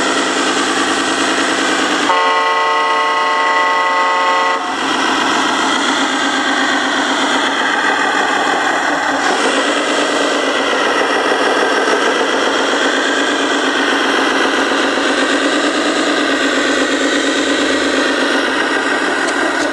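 Radio-controlled heavy truck's sound module playing a diesel engine sound whose pitch rises and falls with the throttle. About two seconds in, an air horn sounds as a chord of several steady tones for about two and a half seconds.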